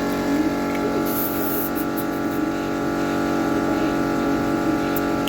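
A motor runs steadily with an even hum. About a second in there is a short hiss of air, and near the end a faint click.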